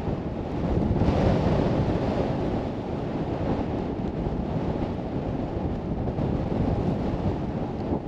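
Strong blizzard wind buffeting the camera microphone with a steady rumbling roar, with a stronger gust about a second in.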